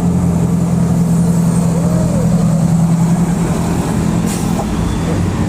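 Tour bus's diesel engine running close by: a steady low drone that weakens a little after about three and a half seconds, over road noise.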